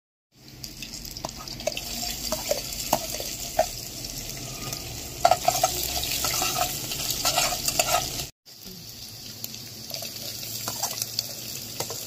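Chopped green chillies sizzling in hot oil in a steel pot, stirred with a metal spoon that clicks and scrapes against the pot. The sizzle stops briefly about eight seconds in, then goes on.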